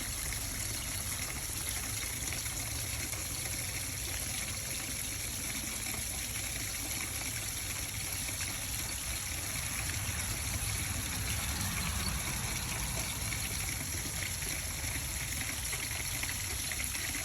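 Water running down a JAS2003BLK rain chain, a steady trickling and splashing that swells slightly about two-thirds of the way through.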